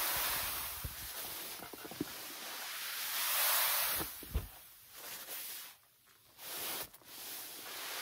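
Snow sliding down the tarp of a Roof Razor roof rake and dropping off the roof edge: a rushing hiss that swells about three seconds in, with a low thump just after.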